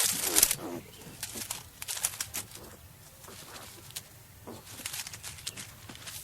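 Skunk vocalizing in a rapid string of short, hissy huffs and chatters, loudest in the first second, then fainter and more scattered.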